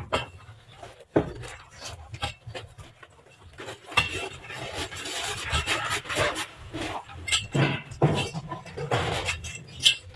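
Long steel digging bar being jabbed into gravelly ground: irregular sharp metal strikes and clinks of stones, with a longer scraping stretch midway.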